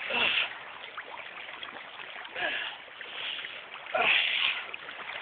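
Person wading through cold floodwater: a splash every second or two, several of them with a short falling 'ooh'-like cry at the cold.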